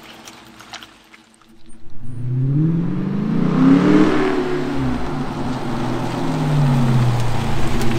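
A Hemi V8 car's exhaust. It comes in about two seconds in, rises in pitch and loudness to a peak about halfway through, falls away, then climbs again near the end, as the car accelerates or revs.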